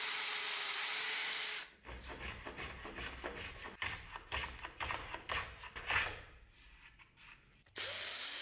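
Drill press running as it bores into a wooden block, a steady whir that stops a little under two seconds in. Then a small hand plane shaving the end of a wooden rail held in a vise, a string of short, irregular rasping strokes. A steady hissing whir starts again near the end.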